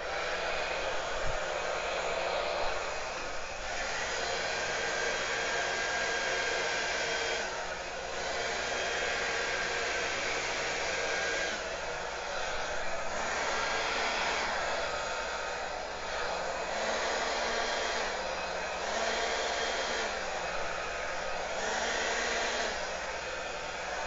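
Hand-held hair dryer blowing steadily, used to push wet acrylic pour paint across a canvas. The level rises and falls slightly every few seconds as it is moved.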